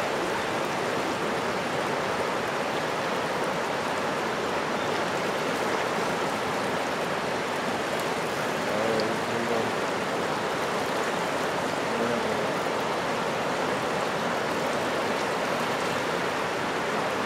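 Steady rushing of a flowing river current.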